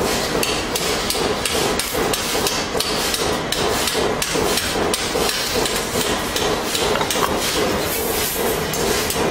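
Irregular hammer-like metal knocks, two or three a second, over a steady mechanical drone in a metal workshop.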